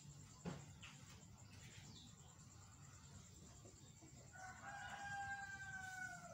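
A rooster crowing once, faint, in one long drawn-out call of about two seconds that starts past the middle and sags slightly in pitch at the end. Before it, a couple of short, faint chirps in the first second.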